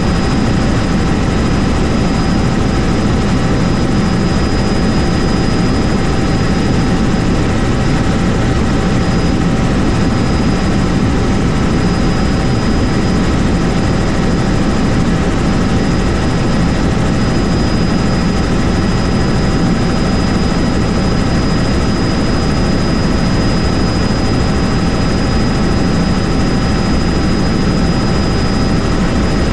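Helicopter running steadily: constant loud rotor and engine noise with a steady high whine on top, unchanging throughout.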